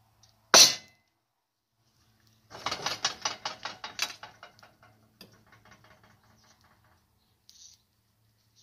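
A fork clinking on a plate: one sharp clink about half a second in, then a quick rattling run of clicks and scrapes lasting a couple of seconds and fading away, with a few faint ticks after.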